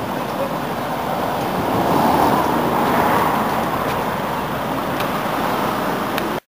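Road traffic with cars passing, swelling about two seconds in and easing again; the sound cuts off abruptly near the end.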